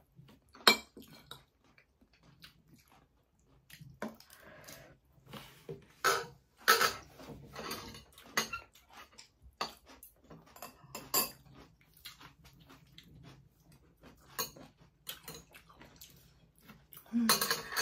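Metal chopsticks and spoons clicking and knocking against plastic food containers, plates and bowls in irregular single taps, with some chewing between them.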